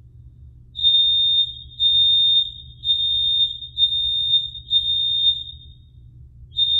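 Building fire alarm sounding for a fire drill: a loud, high-pitched electronic tone pulsing about once a second, with a short pause near the end before it starts again.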